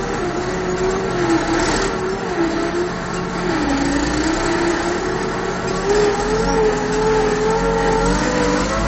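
Case IH 1056 XL tractor's six-cylinder diesel engine running under load while pulling a harrow, heard from inside the cab. The engine note wavers, sagging briefly about three and a half seconds in, then climbing back.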